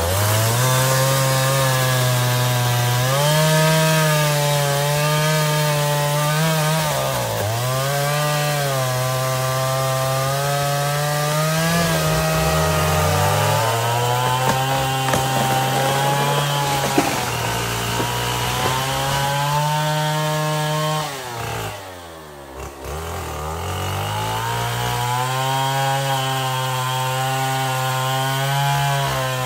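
Petrol chainsaw cutting into a large tree, the engine held high under load with its pitch sagging briefly now and then as the chain bites. About three quarters through it drops toward idle for a second or so, then revs back up and carries on cutting.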